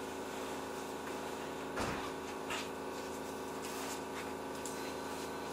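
Keihan 3000-series electric train standing at a platform, its equipment giving a steady hum with several fixed tones; a soft knock about two seconds in and a few faint clicks.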